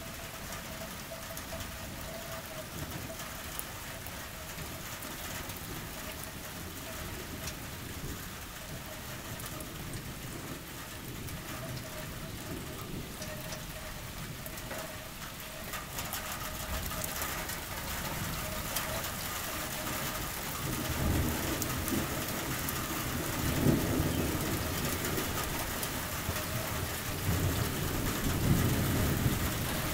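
Steady rain falling, with many small drop ticks. In the last third, low thunder rumbles in several swells, the loudest near the end, from a weak thunderstorm.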